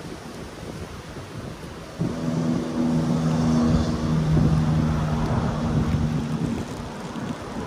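A motor running at a steady pitch starts abruptly about two seconds in and stops after about four and a half seconds, over a background of wind on the microphone and surf.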